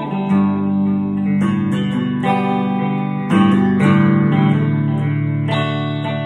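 Orange hollow-body electric guitar being picked and strummed, its chords changing about once a second.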